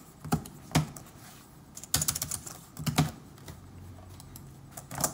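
Computer keyboard being typed on: a few sharp keystrokes in small irregular clusters with pauses between them, as a short name is entered.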